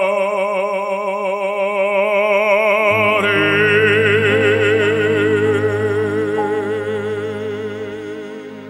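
Operatic baritone singing a Korean art song with orchestral accompaniment. He holds one long final note with wide vibrato while the orchestra sustains beneath it, and the music fades out near the end.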